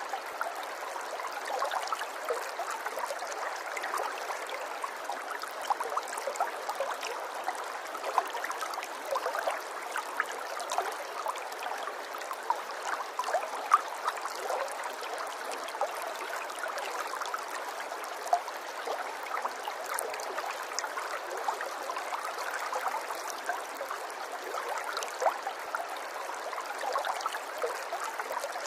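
Water running and trickling steadily, with many small splashes and gurgles, like a small stream over stones.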